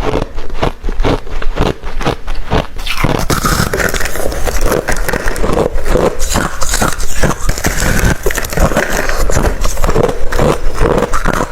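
Close-miked chewing of hard refrozen crushed ice: loud, rapid crunches, turning into a denser, grinding crunch about three seconds in.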